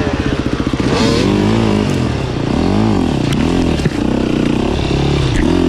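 300 cc two-stroke enduro motorcycle engine chugging at low revs, then, from about a second in, the throttle opened and closed again and again so the engine's pitch swells up and falls back several times.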